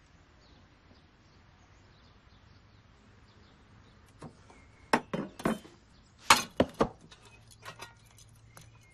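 A kitchen cleaver chopping on a board: a few quick, sharp knocks about five seconds in, then three more just after, with a couple of lighter ones near the end.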